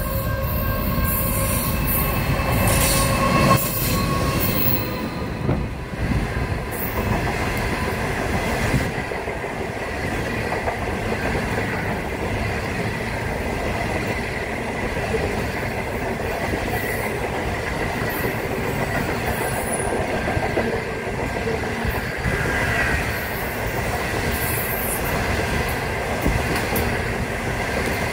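Indian Pacific passenger train passing close by at speed, its stainless-steel carriages rumbling and clattering over the rails with a steady high wheel squeal. A held, horn-like tone sounds over the first three seconds or so.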